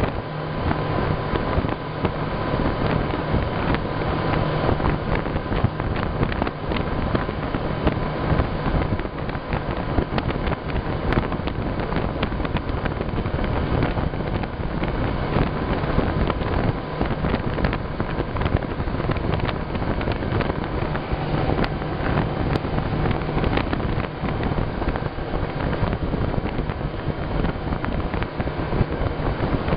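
Small motorboat under way: a steady engine hum beneath heavy wind noise on the microphone.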